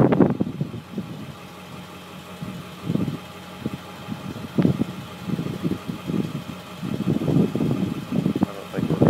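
Gusty wind buffeting the microphone in irregular low rumbles, over a steady low hum.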